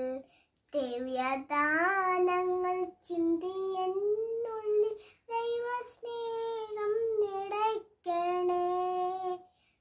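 A young child singing a prayer song solo and unaccompanied, in short held phrases with brief breaths between them. The song ends just before the end.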